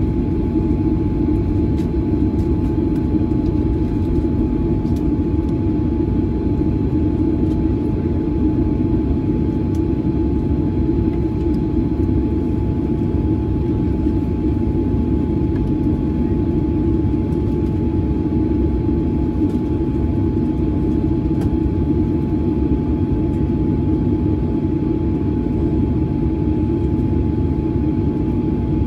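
Boeing 737-900's CFM56 jet engines running at taxi power, heard inside the cabin as a steady, even rumble with a thin steady whine above it.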